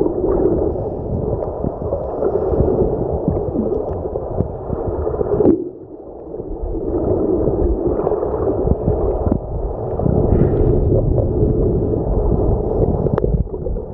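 Wave surge heard underwater washing over a pebble bed: a muffled rush of water with many small clicks of pebbles knocking together. It eases off suddenly about five and a half seconds in, then builds again with the next surge.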